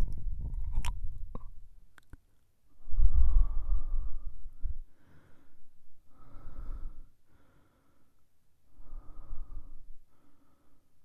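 Binaural ear-licking ASMR: wet tongue and mouth clicks close to the microphone for the first second and a half, then a man's slow, heavy breaths into the ear, about five of them, the first the strongest.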